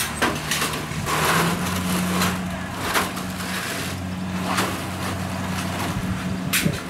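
Diesel engine of a combine harvester running steadily and picking up speed slightly about one and a half seconds in, with scattered knocks and clatter over the hum.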